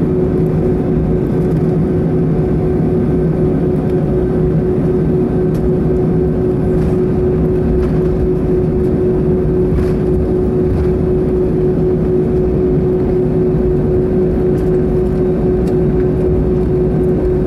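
Airbus A320 cabin noise while taxiing, heard from a window seat over the wing: the jet engines run at taxi power with a steady drone and one constant hum, with a few faint clicks.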